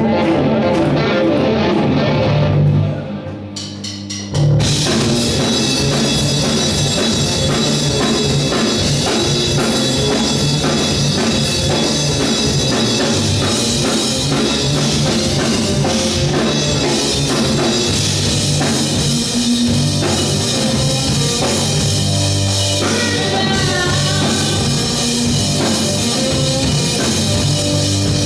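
Live rock band playing loud: drum kit, electric guitar and bass guitar. About three seconds in the band drops to a quieter break, and it crashes back in at full volume a second and a half later.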